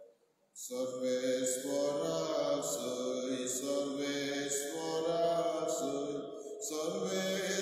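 Sung Gospel acclamation (Alleluia): a voice chanting a slow, held melody, beginning about half a second in after a brief pause.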